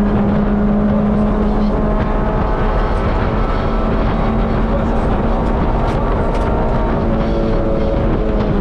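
Rally car engine heard from inside the cabin, pulling at high, nearly constant revs that ease slightly near the end. Its note is mixed with heavy road and tyre noise and a few sharp ticks.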